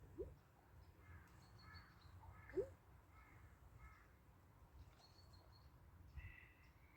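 Faint crow cawing about five times in an even series, with other small birds chirping. Two short rising squeaks, the loudest sounds, come just after the start and about two and a half seconds in.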